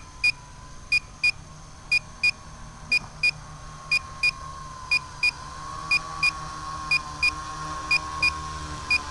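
Electronic beeper on a landed, disarmed tricopter sounding short high double beeps about once a second, over a steady high-pitched hum.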